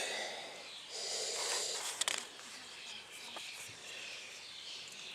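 Paper pages of a printed manual rustling as they are handled and turned, with a sharp snap about two seconds in.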